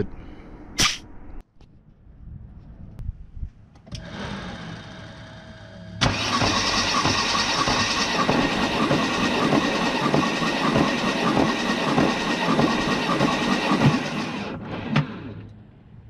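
Mercedes M103 straight-six turned over by its starter with spark and fuel disabled, for a compression test on one cylinder. The steady cranking starts about six seconds in and stops after about eight seconds, with a quieter steady sound just before it and a sharp click about a second in.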